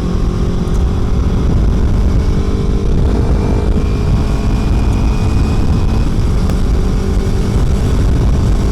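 Kawasaki Ninja 300 parallel-twin motorcycle engine running at a steady pitch while riding, under a heavy, gusting wind rumble on the rider's mic.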